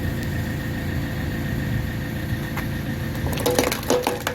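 Tractor engine running steadily, driving a hydraulic log splitter, with a steady whine over the rumble. A few short knocks come near the end.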